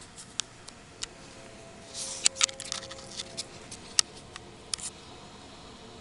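Kitten's paws and claws clicking and scrabbling as it swats and pounces at a fly: a few scattered taps, then a quick flurry about two seconds in, and a few more taps later.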